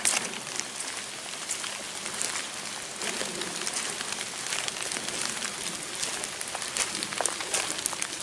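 Steady rain falling in the woods, with scattered sharp drips close by, as someone walks over wet moss and leaf litter.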